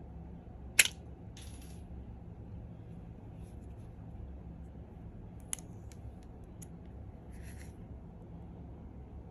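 Handling noise from a rugged smartphone and its plastic screen film as it is tilted and lifted in its mount. A loud sharp click comes about a second in and a fainter one past five seconds, each followed by a short rustle, over a steady low hum.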